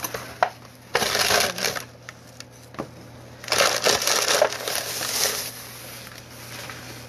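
A white takeout bag crinkling as it is handled and scrunched up, in two bouts: one about a second in and a longer one around the middle.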